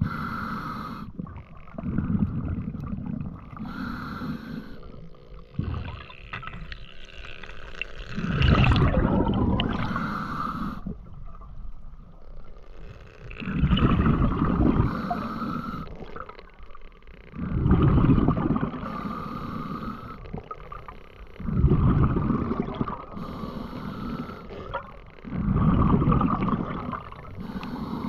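A diver breathing underwater in a steady rhythm: a short hiss on each inhale, then a loud, low bubbling rush on each exhale, a cycle about every four seconds.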